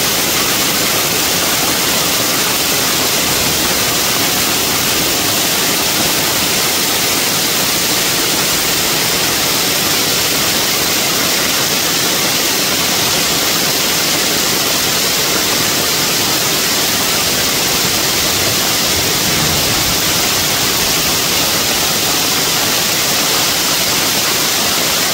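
Heavy hail pelting pavement and a car, a dense, steady rush of noise with no let-up.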